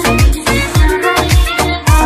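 Background music with a steady dance beat: deep bass hits that drop in pitch, about one every 0.6 s, under drums and short pitched melodic notes.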